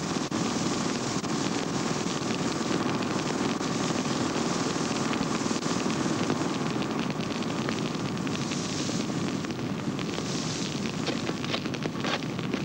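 Forest fire burning: a steady rushing noise with scattered crackles that continues throughout.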